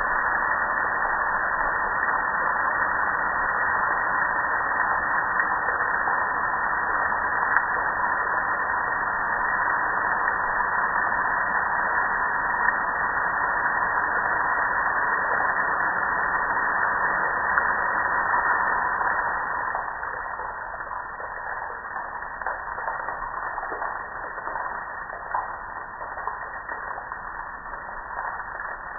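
Water spraying onto a metal gas grill: a steady rushing hiss of spray and runoff with a few small spatters, becoming quieter about two-thirds of the way through.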